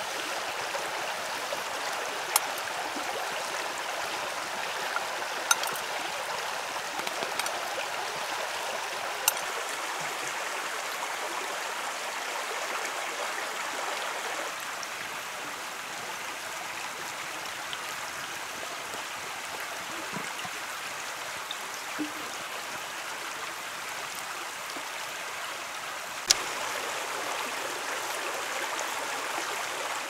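A stream running steadily, with a few sharp clicks standing out over it now and then.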